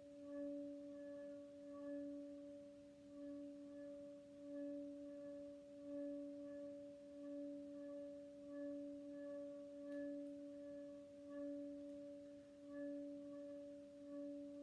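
Stainless steel pot of water rubbed at its metal handles, singing like a spouting bowl: a steady low hum with a second tone above it, swelling and fading in a regular pulse with the strokes.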